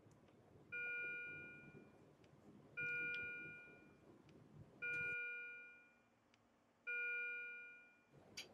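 A bell-like chime sounding four times, about two seconds apart, each note starting suddenly and fading out over about a second.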